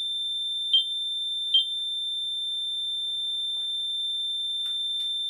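REM pod ghost-hunting sensor alarming with a steady high-pitched tone, which sounds when something comes near its antenna, taken by the investigators as a spirit's answer. Two short louder chirps stand out under a second in and again about a second and a half in, and two faint clicks come near the end.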